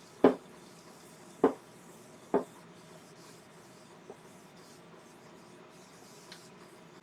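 Three sharp knocks about a second apart, then two light ticks, over faint steady rubbing, as a small Iroko bowl is handled and wiped with hardwax oil.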